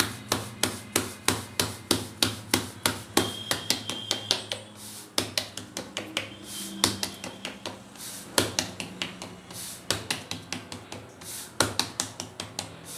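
Jowar (sorghum) bhakri dough being patted flat by hand on a floured steel plate: quick, even slaps of the palm, about four a second, with brief pauses.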